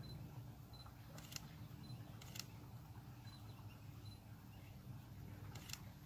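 Faint background: a steady low hum, with a soft short high beep about once a second and three brief high clicks.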